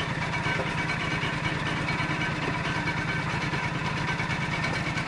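Small garden tractor engine running steadily at a low, even speed, with a fast regular pulse.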